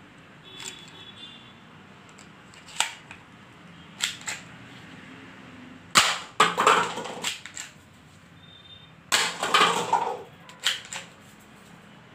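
Spring-loaded toy pistol firing plastic balls: several sharp snapping shots a second or more apart. After two of them, about six and nine seconds in, stacked paper cups rattle and clatter as they are knocked down.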